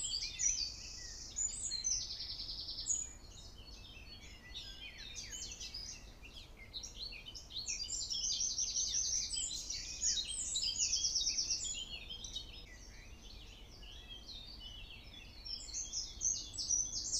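Songbirds singing together in a dense chorus of high chirps and quick trills, louder at the start, around the middle and again near the end.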